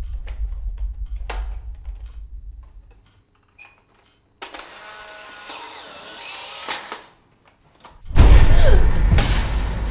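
Horror-film sound design: a low rumbling drone with faint clicks, near silence, a couple of seconds of hiss, then about eight seconds in a sudden loud jump-scare stinger, a deep boom with a noisy crash that slowly dies away.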